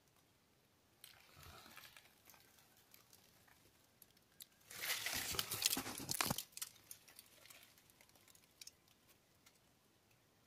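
Dry leaf litter rustling and crunching under movement: a short rustle about a second in, then a louder crackling, crunching stretch from about four and a half to six and a half seconds, followed by a few faint scattered clicks.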